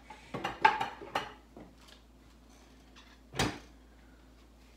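Rummaging in a lower kitchen cabinet: a few quick knocks and clacks of things being moved in the first second, then a single louder knock about three and a half seconds in.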